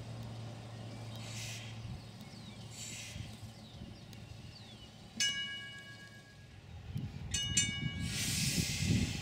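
Interurban electric railway car's air whistle sounding a blast of about a second, then a second, shorter blast, followed by a burst of hissing air as the car begins to roll.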